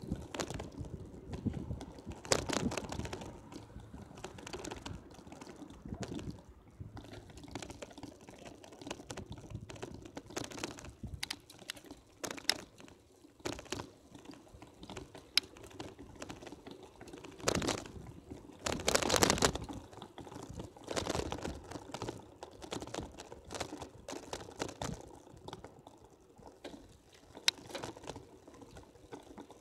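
Irregular clicking and rattling from a moving bicycle and the camera riding on it as it rolls over rough asphalt, with a few louder bumps.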